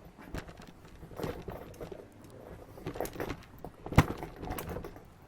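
Tools and metal parts being handled on a workbench: scattered clicks, knocks and rustles, with one sharp metallic click about four seconds in.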